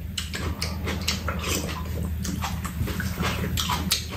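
People eating spicy soft tofu stew at close range: a run of short slurps, chewing and lip-smacking from spoonfuls of broth and mouthfuls of tofu.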